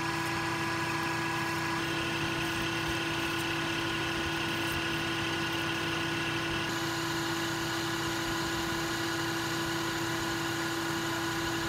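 Metal lathe running steadily as it turns a shaft under flood coolant: an even machine hum with a few held tones.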